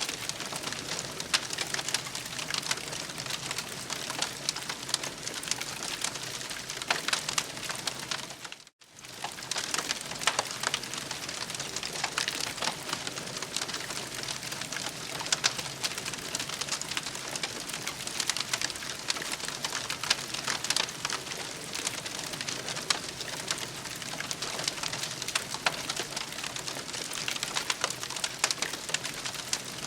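Campfire crackling steadily, many sharp snaps and pops over a soft hiss. The sound cuts out for a moment about nine seconds in.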